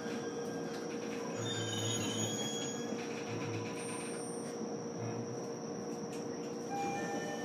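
Inside the motor car of a JR East E129-series electric train: a steady hum from the onboard electrical equipment with a constant high whine, and a few short tones over it between about one and five and a half seconds in.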